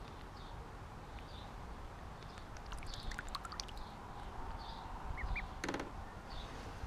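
Ducklings peeping softly now and then as they paddle, over light water splashing in a plastic tub, with one short, louder buzzy sound a little past five seconds in.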